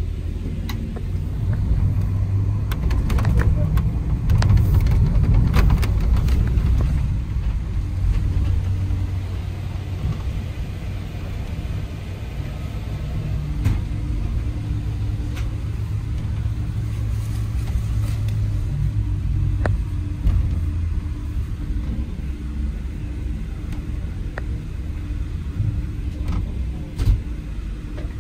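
Scania K440IB bus's diesel engine running with a steady low rumble, a little louder about four to six seconds in. A few light clicks come near the start, and a steady hum joins in about halfway through.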